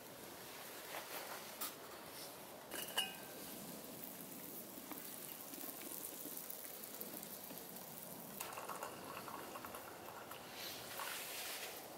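A pot of stew simmering and bubbling on a wood-burning tent stove, with a few crackles and a sharp metal clink about three seconds in. Near the end, hot liquid is poured from a small pot into a cup.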